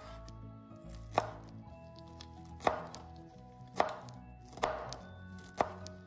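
Chef's knife chopping fresh parsley on a wooden cutting board: five sharp chops, about a second apart.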